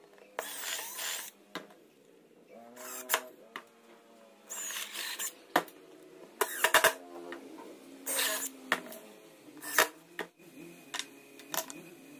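Cordless drill running in about six short bursts, boring into pine, with the motor whine rising and falling in each burst and a few sharp clicks between them.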